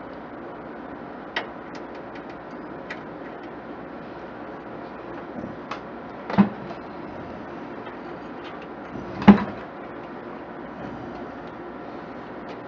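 Tools and computer parts being handled: a few light clicks and two louder knocks, the second the loudest, over a steady background hum.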